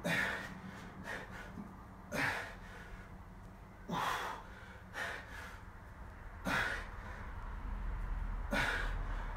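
A man breathing hard, with a short, forceful exhale about every one and a half to two seconds as he works through a set of press-ups: the breathing of heavy exertion.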